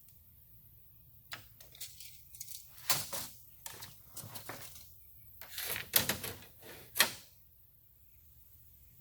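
Small hard parts being handled and set down on a steel panel: irregular clicks, clinks and clatter for several seconds, with two sharp knocks near the end.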